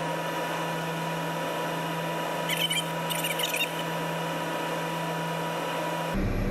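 Cab noise of a 20-tonne rough-terrain crane, its engine and hydraulics played at five times speed as a steady high whine, with a few brief squeaky chirps about two and a half to three and a half seconds in. Near the end it cuts to a deeper, louder hum at normal speed.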